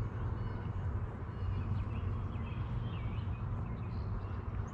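Steady wind noise buffeting the microphone, with a few faint bird chirps about two seconds in.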